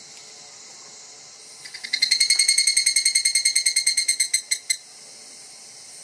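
Evening cicada (higurashi) calling its 'kana-kana' song: a rapid train of high-pitched pulses, about nine a second, that swells up quickly, then slows into a few separate pulses and stops. A faint steady high hiss lies underneath.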